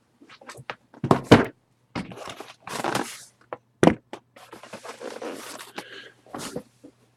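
Handling noise from a camera being picked up and turned around: irregular knocks, thumps and scrapes close to the microphone, the loudest about a second in and again near four seconds, over a steady low hum.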